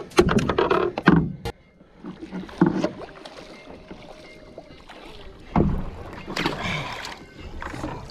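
Water splashing beside an outrigger canoe as a hooked fish is gaffed alongside, in irregular bursts, with a sharp knock about a second and a half in.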